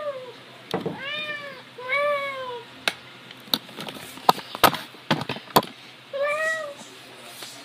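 A cat behind a closed door meowing to be let out of the room: three drawn-out meows, about one, two and six seconds in, with a run of sharp knocks between the second and third.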